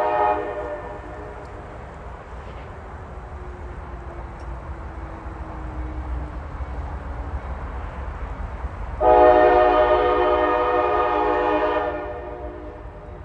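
CSX diesel locomotive's air horn sounding one long, chord-like blast of about three seconds, starting sharply about nine seconds in, over the steady low rumble of the locomotives; the tail of an earlier horn blast cuts off just at the start.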